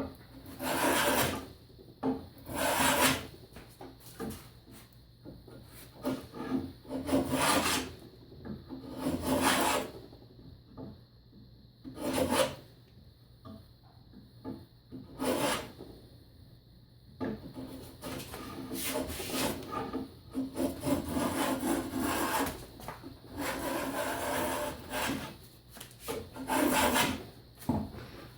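Hand rabbet plane shaving dry oak: separate rasping strokes every two to three seconds, then a longer run of quicker, shorter strokes in the second half, and one more full stroke near the end.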